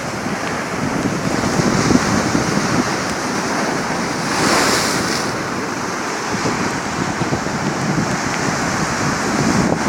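Sea waves breaking on the shore, with wind buffeting the microphone. One surge of surf about halfway through is louder and hissier than the rest.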